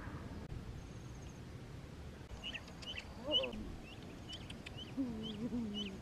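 Domestic duck calling while carried: a short call about three seconds in and a longer, wavering call near the end. Repeated short, high chirps run from about two seconds in.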